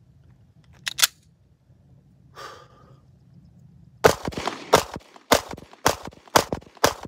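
Walther PPS M2 9mm pistol: two sharp clicks about a second in as it is handled for loading, then six shots in quick succession, about half a second apart, starting about four seconds in. The shots are by far the loudest sound.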